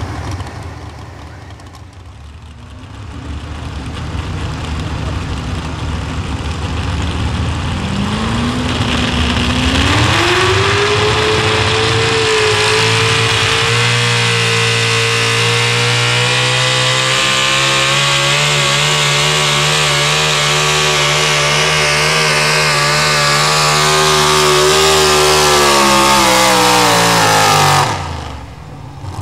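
Pro stock four-wheel-drive pulling truck's supercharged engine making a full pull: a low rumble, then the pitch climbs over about two seconds and holds high and steady at full throttle for most of the run. Near the end the pitch falls and the sound cuts off suddenly.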